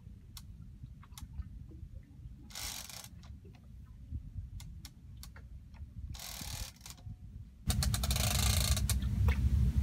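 Clicking and ratcheting of a Penn Tyrnos 30 big-game reel under heavy load from a hooked tuna, with two short rushing bursts about two and a half and six seconds in. Near the end a louder, steady low rumble suddenly takes over.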